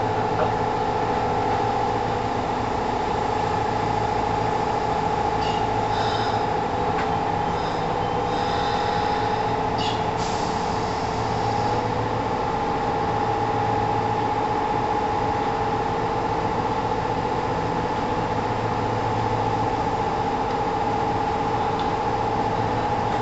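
Kintetsu 1000-series electric train standing at a station, heard from aboard: its on-board equipment keeps up a steady hum made of several held tones. A few short higher-pitched sounds come about 6 and 10 seconds in.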